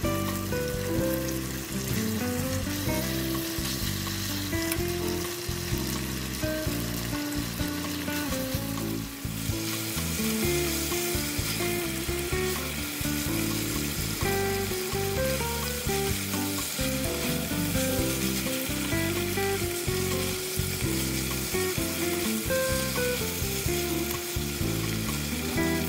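Beef strips sizzling in hot oil in a nonstick pan as they are stirred and turned, the sizzle growing louder about ten seconds in. Background music plays throughout.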